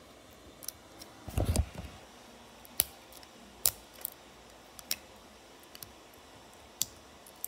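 Small objects being handled on a desk: scattered sharp clicks and taps, about a dozen, with a duller thump about one and a half seconds in.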